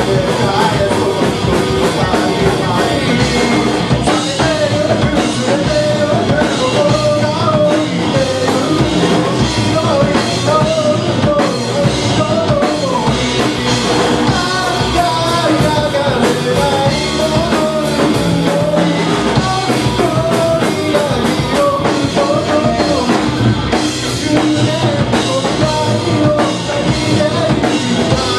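Live rock band playing at full volume: electric guitar, bass guitar and drum kit, with a male lead vocalist singing over them.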